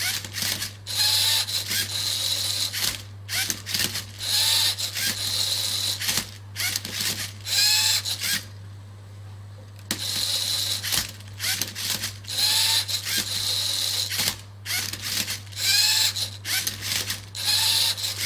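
Electric servo motors of a LEGO Mindstorms cube-solving robot running in short repeated bursts, with brief pauses between moves and a longer pause about eight and a half seconds in. They turn the turntable and tip the cube with the arm, and each burst carries a short whine that bends in pitch.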